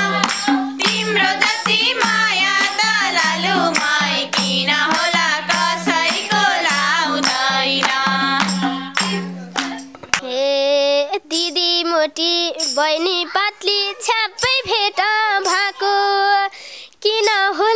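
Nepali dohori folk song sung live by women's voices, kept in time by hand clapping and a small tambourine. About ten seconds in, the low steady accompaniment drops away and one female voice carries the melody almost alone.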